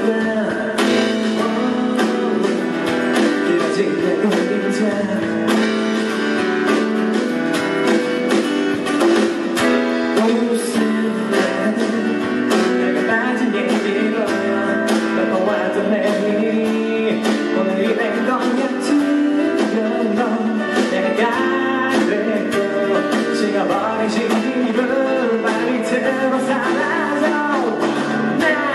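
A man singing live while strumming a dreadnought acoustic guitar in a steady rhythm.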